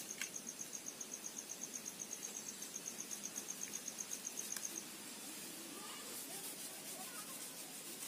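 An insect chirping in a fast, even pulse, about ten high chirps a second, which stops about five seconds in.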